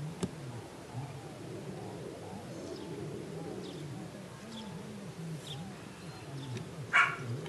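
Doves cooing in a slow repeated series of low rising-and-falling notes, with faint chirps of small birds. A brief louder sound comes near the end.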